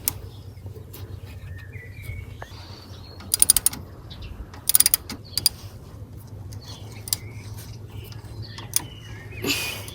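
Ratchet wrench clicking in short rapid bursts, with scattered single clicks, as the brake caliper bolts are tightened.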